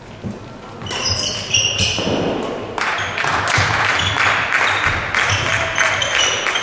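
Badminton doubles rally: rackets hitting the shuttlecock, with sports shoes squeaking and stamping on the court floor. The squeaks and footfalls start about a second in and come thick and fast from about three seconds in.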